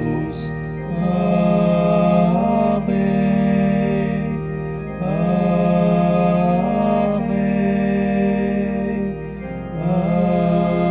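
Slow liturgical singing over sustained keyboard chords, in about three long phrases with brief dips between them.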